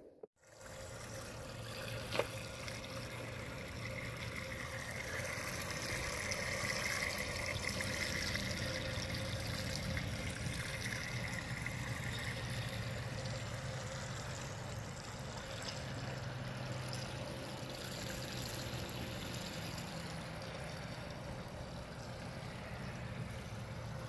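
Water trickling steadily from a pet drinking fountain's spout into its metal bowl.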